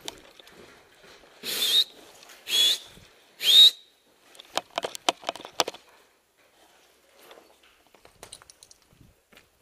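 Three short, loud whistle blasts in quick succession, then a quick run of sharp clicks or snaps.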